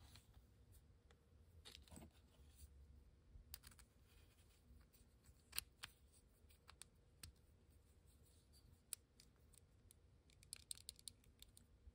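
Faint, scattered small clicks and taps in near silence: a thin steel pin cut from a binder clip and the jointed wooden lure body being handled while the pin is fed through the hinge eyelets. The clicks come irregularly, one clearer tap about halfway through and a quick cluster near the end.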